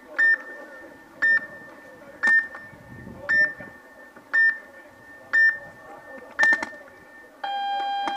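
Electronic countdown beeper giving short high beeps once a second, seven times, then a longer, lower start tone about seven and a half seconds in: the signal that starts a paintball point.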